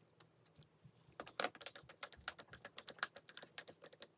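Hand screwdriver driving a screw through a metal cabinet hinge into an acrylic door sheet: a quick, irregular run of small sharp clicks that starts about a second in.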